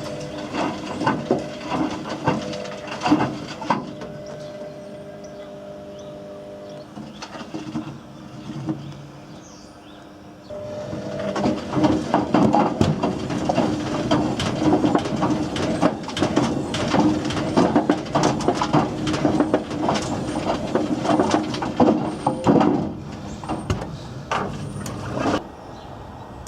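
Whirlpool WWDC 7210/1 washing machine drum turning with hard objects clattering and knocking inside it over the motor's hum. After a brief bout of knocks the tumbling goes quiet for several seconds, then resumes about ten seconds in with continuous rattling and banging that stops near the end.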